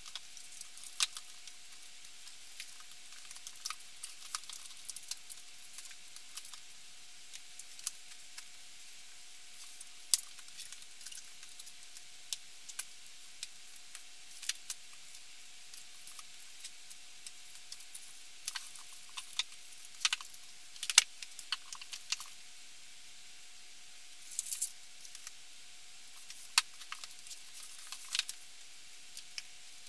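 Books being handled and set on a shelf: scattered, irregular taps and knocks with light rustling, over a faint steady hum.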